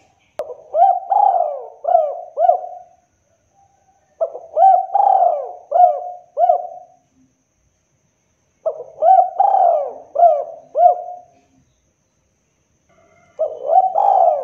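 Spotted dove cooing: three phrases of about five arching coos each, a couple of seconds apart, with a fourth phrase starting near the end.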